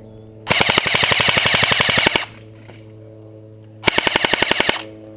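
Airsoft gun firing two full-auto bursts of rapid, evenly spaced shots, the first about a second and a half long and the second about a second.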